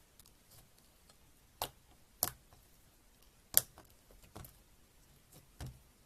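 Slime being pressed and handled, giving sharp sticky clicks and pops at uneven intervals, about five in all, with faint crackling between.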